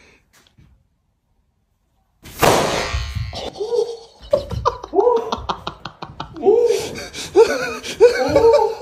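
Near silence, then about two seconds in a sudden loud crash, followed by loud, repeated laughter.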